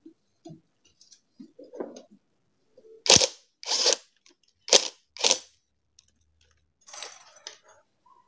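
A few small knocks, then four loud, sharp metal clanks in quick succession from motorcycle wheel and swing-arm parts being handled while the rear wheel is taken off the swing arm, followed by a short rustle.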